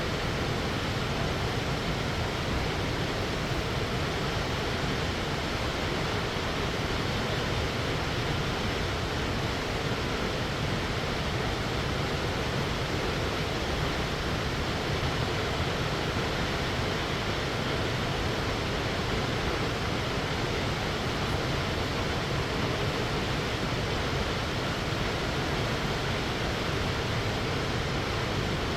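Waterfall rushing: a steady, unchanging wash of falling water.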